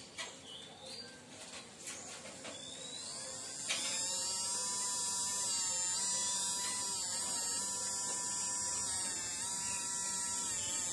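Small DC motor driven from a bench power supply: a few clicks, then about four seconds in it starts abruptly and runs with a steady high whine, its pitch dipping briefly a couple of times before it winds down near the end.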